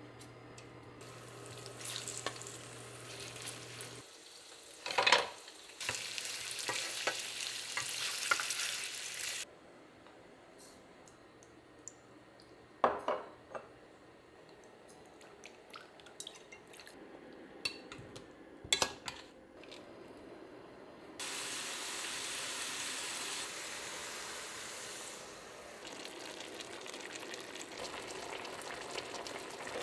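Food sizzling in a frying pan while it is stirred, in several separate stretches that start and stop abruptly, with a few sharp knocks.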